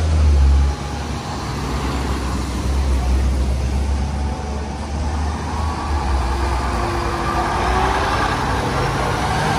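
A fire engine's diesel engine rumbling low as the apparatus pulls out onto the street, with a school bus passing close by that is loudest in the first second.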